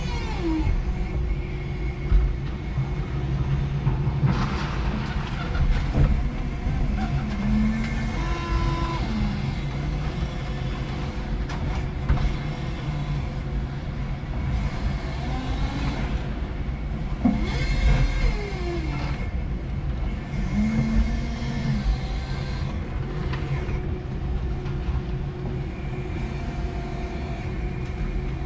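5-ton electric forklift working at a trailer load: its motors and hydraulics whine in short spells that rise and fall, over a steady low rumble, with a few sharp clunks about two, six and eighteen seconds in.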